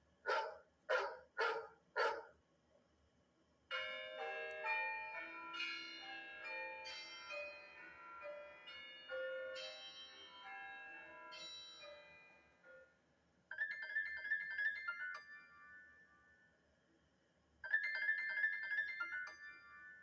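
iPad mini 4 ringtones played one after another. Four short chime pulses come in the first two seconds. About four seconds in, a bell- and piano-like melody runs for about nine seconds. Then a quick repeating tone phrase sounds twice, a few seconds apart.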